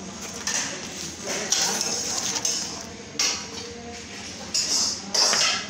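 Intermittent metal clinks and scrapes as long iron rods work rotis baking on the wall of a clay tandoor, in several short noisy bursts.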